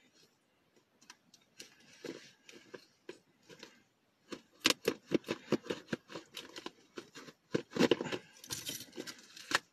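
A tightly taped package being torn open by hand. Tape and packaging rip and crinkle in short bursts that start sparse and come thick and louder from about halfway through.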